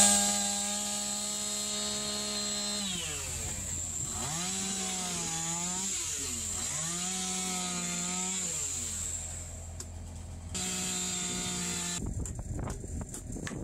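Two-stroke chainsaw cutting into a squared timber beam: its engine runs steadily, drops in pitch, then twice dips and climbs back as the chain bites into the wood, and runs steadily again. The saw sound stops abruptly near the end, followed by a few faint knocks.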